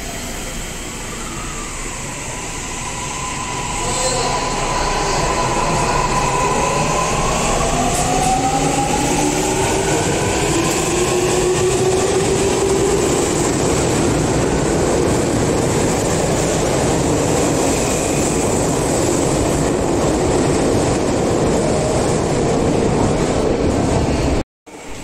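Toei Mita Line 6500-series subway train pulling out of an underground station: the motor whine rises in pitch as it accelerates, over a growing rumble. This settles into steady running noise as the train leaves, and the sound cuts off abruptly near the end.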